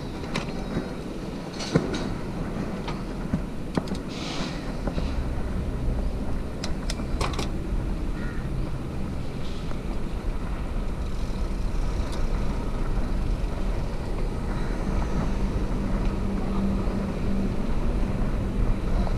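Bicycle rolling over brick paving: a steady low rumble and rattle from the tyres and frame that grows stronger about four seconds in, with a few sharp clicks and knocks in the first eight seconds.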